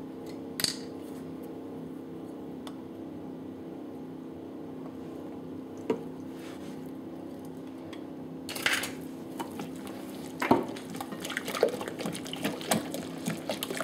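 A few light clinks, then from about halfway a wire whisk beating a runny cream-cheese and egg batter in a glass bowl, clicking rapidly against the glass. A steady low hum runs underneath.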